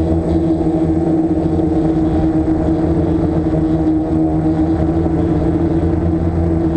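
A DJI F550 hexacopter's six motors and propellers humming steadily in flight, heard from the craft's own onboard camera: several steady tones over a low rumble.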